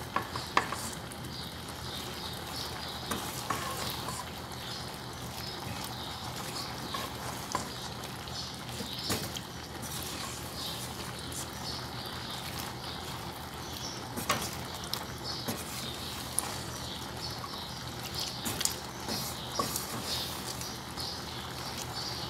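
Wooden spoon stirring shrimp in a cream sauce in a metal pan, with irregular scrapes and knocks of the spoon against the pan.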